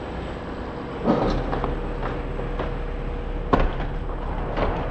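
Cargo pallet being driven over the ball mat and power drive units into a Boeing 747's side cargo door. A low rumble starts about a second in, with clunks and rattles, one sharp knock near the middle.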